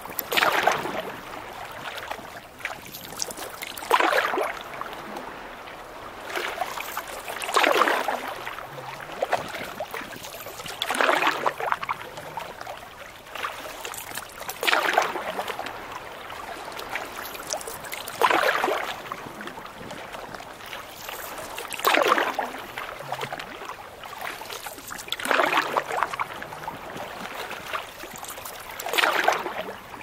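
Canoe paddle strokes splashing through choppy lake water, nine strokes about one every three and a half seconds, over a steady wash of water.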